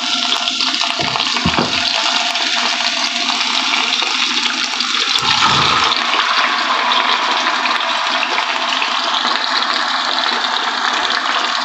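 Marinated chicken pieces sizzling in hot oil in a frying pan, a steady hiss, with a few low thuds about a second in and again near the middle as pieces drop into the pan.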